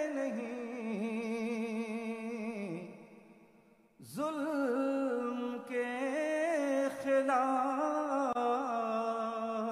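A poet's voice singing a line of Urdu verse in tarannum, the chanted melodic style of a mushaira, with long drawn-out notes and vibrato. The voice fades out about three seconds in and starts again about a second later.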